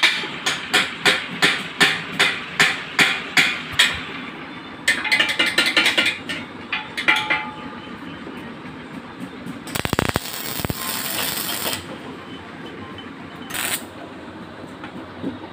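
Hammer tapping on stainless steel tubing, about two and a half sharp strikes a second for the first four seconds, then a quicker run of metal clinks. Later a welding arc hisses for about two seconds as the steel tubes are tack-welded, with a brief second tack near the end.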